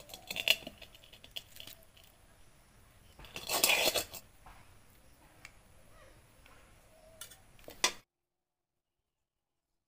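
Dishes and food being handled: short bursts of clatter and scraping, the loudest about three and a half seconds in. The sound cuts off abruptly to silence about eight seconds in.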